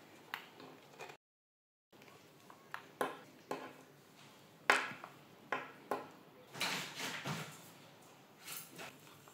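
Hands handling the plastic chassis and wiring of an RC truck: scattered light clicks and knocks with some rubbing, the sharpest click about five seconds in. The sound cuts out completely for under a second, about a second in.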